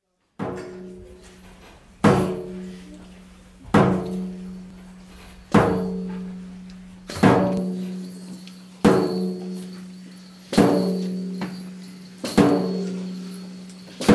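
A drum beaten slowly and steadily, nine single strikes a little under two seconds apart, each ringing out with a low hum that carries on until the next.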